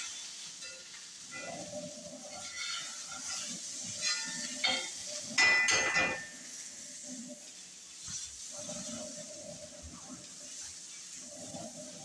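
Food sizzling in a frying pan on a gas stove, with a metal utensil stirring and scraping against the pan; a few clinks about four seconds in and the loudest scrape, with a ringing metallic tone, at about five and a half seconds.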